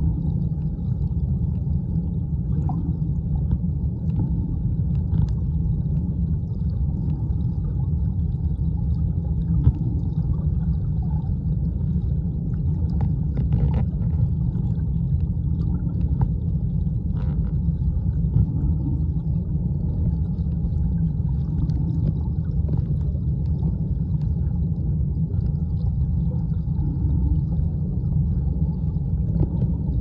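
Mountain stream heard underwater: a steady low rumble of rushing current through a submerged camera, with a few faint ticks scattered through it.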